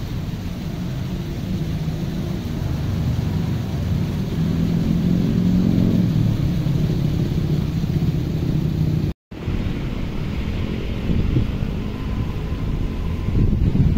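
Outdoor street ambience: a steady low rumble of road traffic, which cuts out for a moment about nine seconds in.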